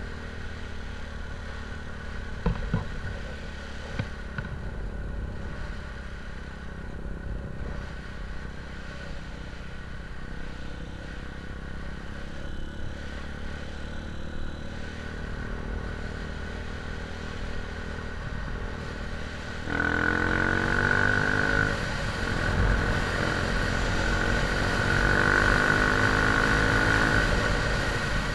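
A vehicle engine running steadily, with a few sharp knocks a few seconds in. About two-thirds of the way through it gets louder, with a high whine and a pitch that rises and falls as the engine is revved.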